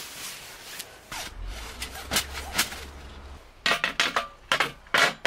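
Rubbing and handling noise, then about a second and a half of quick sharp clacks near the end: wooden table slats being laid into a folding metal camp-table frame, wood knocking on metal.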